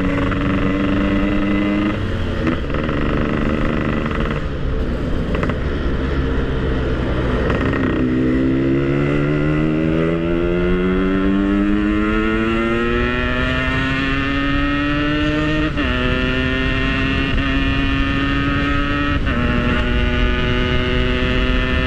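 Yamaha RX-King two-stroke single-cylinder motorcycle engine under way: after a few seconds of uneven running it climbs steadily in pitch as it accelerates, dropping sharply twice as it is shifted up a gear, about two thirds of the way in and again a few seconds later.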